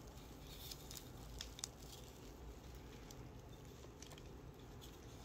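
Faint scattered crackling and light clicks as a mohair wig is pulled off an antique Armand Marseille 390 bisque doll head.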